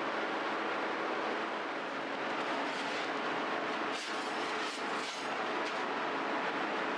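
Steady noisy hum of bakery equipment running, with a few faint knocks about four and five seconds in.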